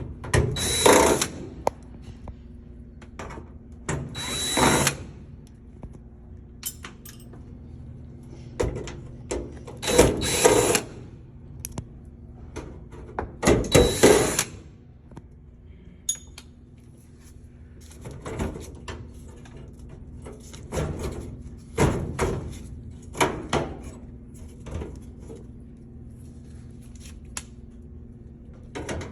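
Power drill running in short bursts every few seconds, each a second or less, with a steady whine. Sharp clicks and knocks come in between.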